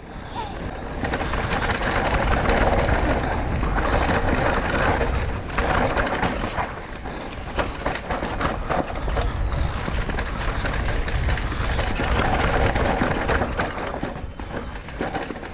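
Electric mountain bike descending a rough dirt trail: tyres rumbling over the ground and the bike rattling, with wind buffeting the mounted microphone.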